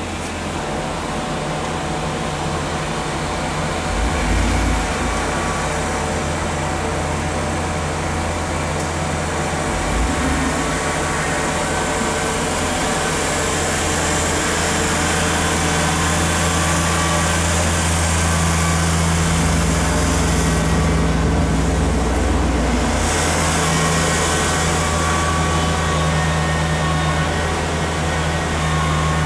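A motor vehicle engine running steadily near idle, with a deeper low rumble for a few seconds about two-thirds of the way through.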